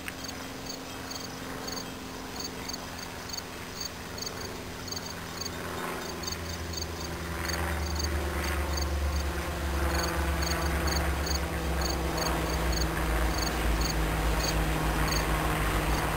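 Crickets chirping in rapid, regular short pulses, while the low rumble of an approaching CN diesel locomotive builds from about six seconds in and becomes the loudest sound.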